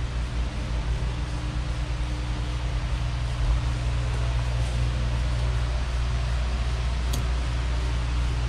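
Steady low machine hum under an even hiss, with one faint click about seven seconds in.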